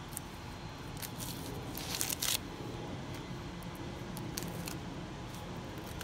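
Husk leaves being torn and peeled off an ear of giant Peruvian choclo corn by hand: scattered crackles and rustling, with a louder rip about two seconds in.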